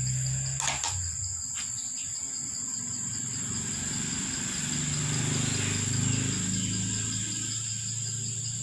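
Steady high-pitched insect chirring in the background, with a low rumble that swells and fades around the middle. A brief sharp click about a second in.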